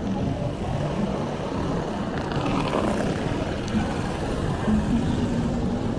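City street traffic: steady engine and tyre noise, swelling as a vehicle passes close by about two to three seconds in.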